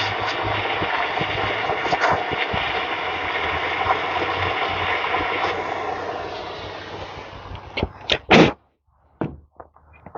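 Propane hand torch burning with a steady hiss, dying away about six to seven seconds in. Then come two sharp knocks and a few faint clicks.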